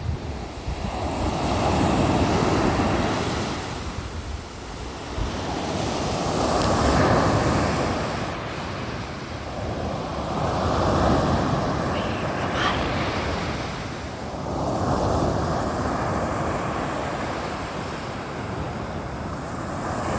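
Sea waves breaking on the shore: the surf swells and falls back in slow surges about every four seconds. Wind rumbles on the microphone underneath.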